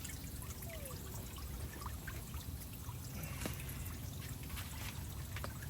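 Steady rain falling, with water trickling and pouring.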